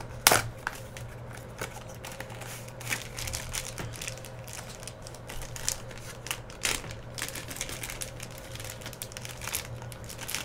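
Small cardboard trading-card box being opened with a sharp crack just after the start, then a black plastic wrapper crinkling and rustling in irregular crackles as it is pulled out of the box and handled.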